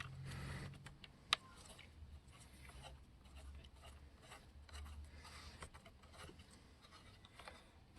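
Faint handling sounds as a chainsaw's air cleaner is fitted back together by hand: small clicks and rubbing of parts, with one sharper click a little over a second in.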